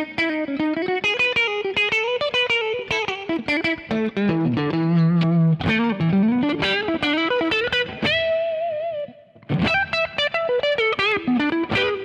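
Electric guitar, a Fender Telecaster, playing a funky single-note lead line through a Xotic Robotalk auto-wah pedal, the filter sweeping on each picked note. Quick runs, a held note about eight seconds in, then a brief gap before more quick notes.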